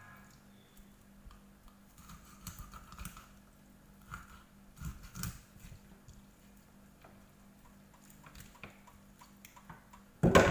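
Knife cutting through raw chicken: scattered quiet clicks and crunches as the blade works through joints and meets the board, over a faint steady hum.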